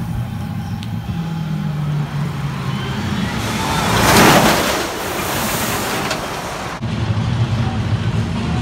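Top Thrill Dragster roller coaster train rolling past on its elevated steel track: a rushing noise that swells to a peak about four seconds in, then fades. A steady low hum lies under it before and after.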